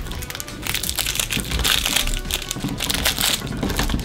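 Crinkly plastic wrapping of a small toy packet rustling and crackling as it is torn open and unfolded by hand, over background music.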